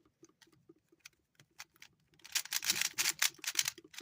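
Plastic clicks and clacks of a stiff, old-style 3x3 puzzle cube being turned hard in a timed solve: a few scattered clicks, then a fast flurry of turns a little past halfway.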